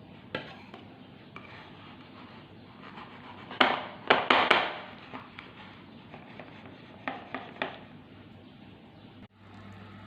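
Kitchen dishes and utensils knocking and clattering: a cluster of sharp knocks about halfway through, then three lighter ones a few seconds later.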